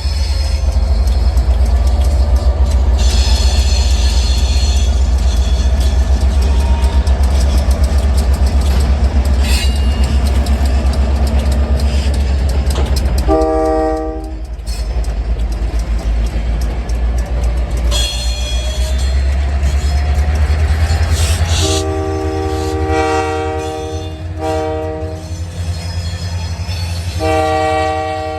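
Diesel locomotive rumbling as the train rolls by, sounding its multi-note air horn: one brief blast about halfway through, then a long blast, a short one, and another long blast near the end.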